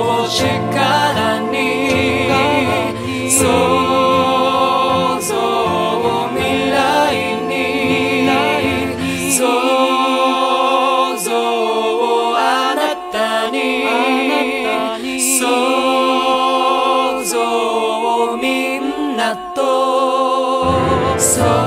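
Music: a song with sung vocals. The bass drops out about halfway through, leaving the voices and accompaniment on their own, and comes back shortly before the end.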